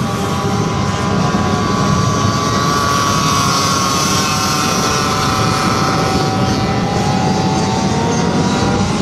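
Flat track racing motorcycle engines running at high revs, their pitch slowly rising and falling.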